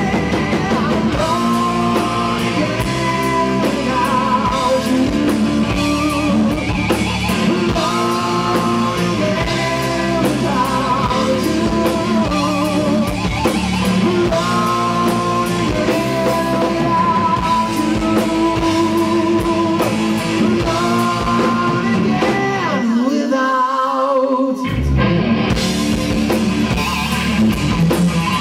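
Rock band playing live: electric guitar, bass guitar and drum kit under a singer holding long, wavering notes. About 23 seconds in, the bass and drums drop out for a couple of seconds, leaving a lone sustained note, and then the full band comes back in.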